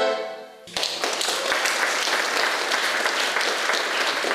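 A button accordion's last chord dying away, then a congregation applauding steadily from about a second in.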